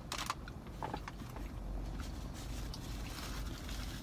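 A man chewing a mouthful of tuna sub with his mouth closed. There are a few sharp clicks at the start and a steady low rumble underneath.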